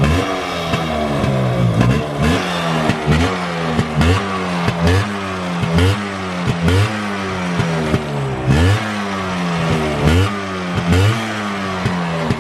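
Yamaha RX 135's single-cylinder two-stroke engine through a CAT silencer, revved in short throttle blips over and over, the pitch rising and falling with each one, roughly one and a half blips a second.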